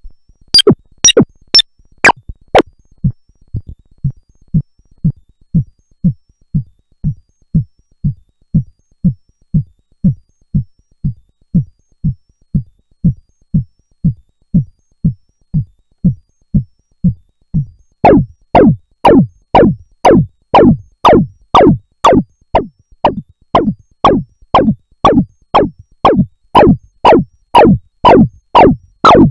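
Arturia MicroBrute analog synthesizer playing a sequenced run of short notes, a little over two a second, each dropping sharply in pitch like a zap. About three seconds in the notes turn dull and muffled, and about eighteen seconds in they open up bright again.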